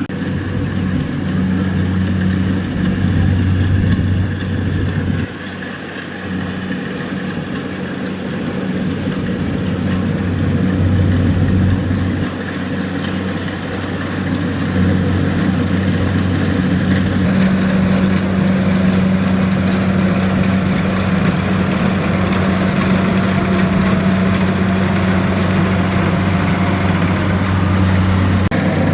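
Kubota DC-70 Plus combine harvester's diesel engine running steadily with a low hum. It drops in level about five seconds in, then builds back up and holds steady.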